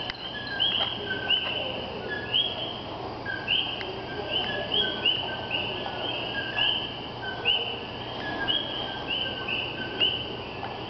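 A chorus of coquí frogs calling, many individuals overlapping. Each gives the two-note "co-quí" call: a short lower note followed by a higher, slightly rising whistle, the calls coming several times a second.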